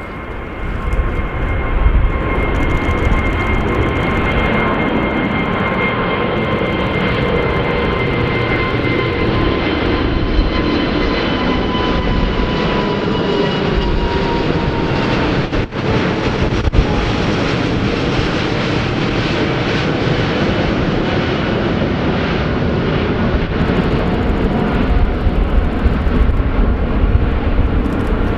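Airbus A380's four Rolls-Royce Trent 900 turbofans running loud as the airliner passes low overhead, climbing. A whine rides on the roar and slowly falls in pitch as it goes over, and the sound turns to a low rumble as it flies away.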